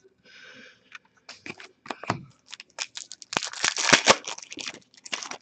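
Hockey card pack being torn open and the cards handled and flicked through: a run of irregular crinkly rustles and clicks, thickest a little past the middle.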